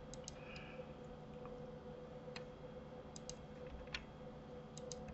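Faint, scattered clicks of a computer mouse and keyboard, about eight in all and several in quick pairs, over a steady faint hum.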